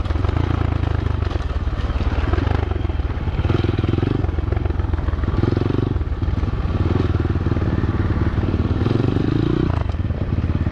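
SSR125 pit bike's 125 cc four-stroke single-cylinder engine running under way as it is ridden along a trail, the throttle opened and eased several times so the engine note swells and drops every second or two.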